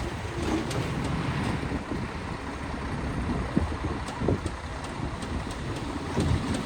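Diesel engine of heavy earthmoving machinery running with a steady low rumble, with a few light clanks, and wind buffeting the microphone.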